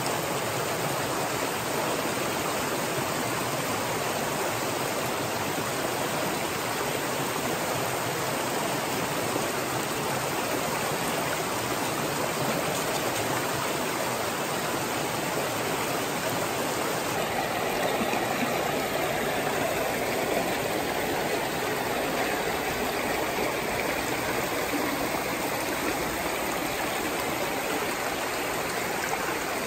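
Small rocky stream running steadily over stones and riffles. Its rushing shifts slightly in tone a little past the middle.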